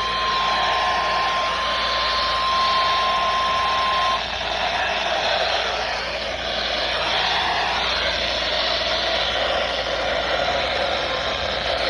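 NOAA Weather Radio's steady single warning alarm tone, close to its standard 1050 Hz, sounding over heavy radio static and cutting off about four seconds in. The receiver's static hiss carries on alone after the tone.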